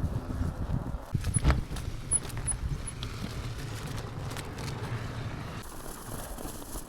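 Bicycle being ridden slowly down a snow-covered road: a steady low rumble, with a few sharp knocks about a second and a half in.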